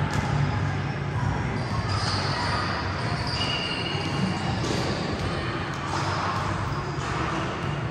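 Basketballs dribbled and bouncing on a gym floor, many quick knocks overlapping, with a few brief high squeaks.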